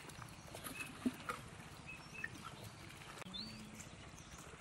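Scattered splashes and sloshes of hands and legs working in shallow muddy water while fish are caught by hand, the sharpest splash about a second in. A low hum runs underneath, with a few high chirps.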